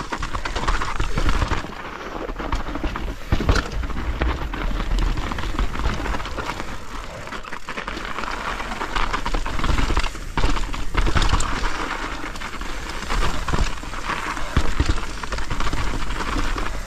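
Mountain bike riding down a snow-covered trail: a steady rushing noise from the moving bike, broken by frequent sharp knocks and rattles as it rolls over bumps.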